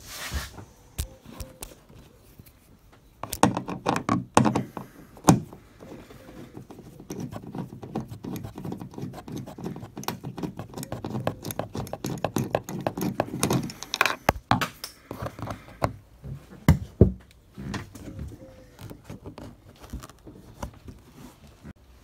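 Hand-tool work on a car tailgate: a few sharp knocks, then a long run of rapid metallic clicking and rattling, typical of a small socket ratchet undoing the 7mm bolt that holds the boot handle. It dies down about fourteen seconds in, with a few more knocks after.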